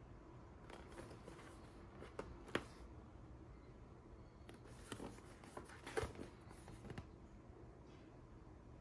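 Fingers handling and turning a cardboard box, with faint rustling and scattered light taps on the card. The sharpest clicks come about two and a half and six seconds in.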